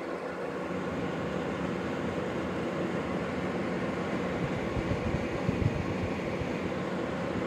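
Steady mechanical whirring hum that runs without a break.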